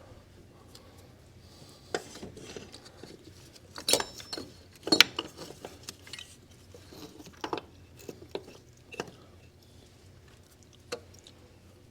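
Scattered metal clinks and clicks of hand tools and small metal parts being handled, loudest around four to five seconds in, over a faint steady low hum.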